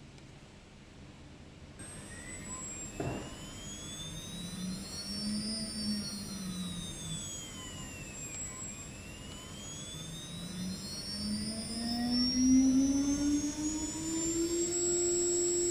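Water-cooled 5.5 kW CNC router spindle whining as its speed changes: the pitch rises, drops back about 6 seconds in, then climbs to a steady higher whine near the end, growing louder. Thin high-pitched whistles sweep up and down above it, with a single click about 3 seconds in.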